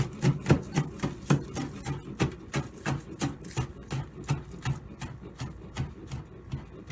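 Kitchen knife chopping green onion on a cutting board: quick, even knocks, about three a second.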